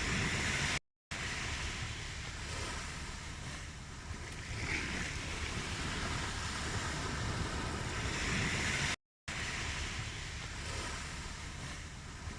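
Ocean waves washing onto a shore, the surf swelling and easing about every four seconds. The sound cuts out briefly twice, about a second in and about nine seconds in.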